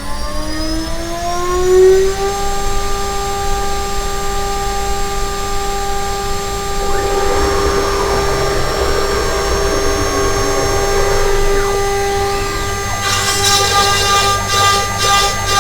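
DIY CNC router spindle whining as it spins up, the pitch rising for about two seconds and then holding steady. From about the middle a rough rasp of the single-flute end mill cutting plywood joins in. Near the end comes a regular pulsing a few times a second.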